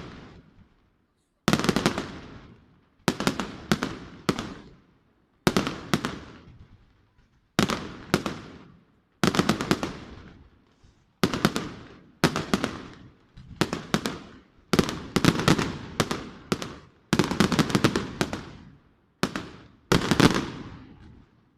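Fireworks going off in a fast series of sharp bangs and crackling clusters, one every second or two, each dying away before the next.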